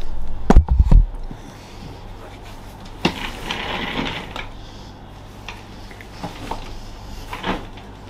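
Handling noise of a person sitting down in a gaming chair: two or three heavy thumps about half a second in, then a sharp click, clothing and chair rustling and a few light knocks.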